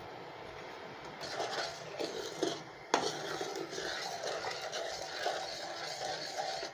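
A metal spoon stirring liquid in a steel pot, scraping against the pot, with one sharper clink just before three seconds in.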